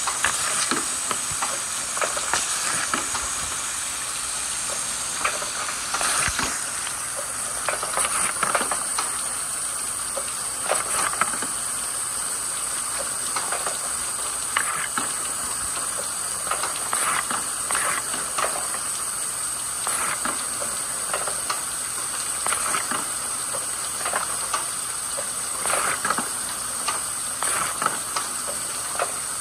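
Steady rush and splash of water running down a plastic slide and pouring out of a rain-gutter chute, with irregular sharp knocks of wooden balls tumbling along in the flow.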